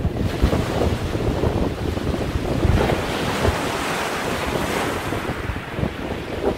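Heavy surf breaking and washing over a rocky shore, with strong wind buffeting the phone's microphone in uneven gusts; the rushing hiss of the surf swells in the middle.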